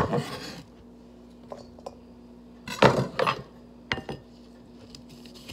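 Kitchen dishes and utensils knocking and clinking in a few short bursts as food is handled: once at the start, a longer cluster near the middle and a single knock about four seconds in.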